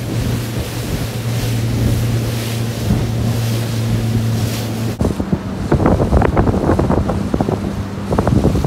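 Outboard motor of a small aluminium boat running at speed, a steady drone under wind buffeting the microphone and rushing water. About five seconds in the sound changes: the engine drone is lower and irregular knocks and splashes come over it.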